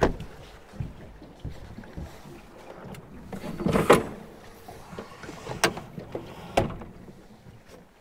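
Gear being handled aboard a small fishing boat: scattered knocks and clicks as the trolling motor and coolers are moved. There is a louder clatter about four seconds in, then two sharp clicks a second apart.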